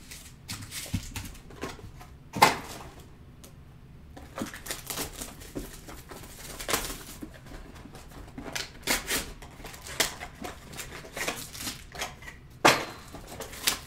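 Sealed trading-card boxes being handled: shrink-wrap crinkling with light cardboard taps and clicks, a sharper knock about two seconds in and another near the end.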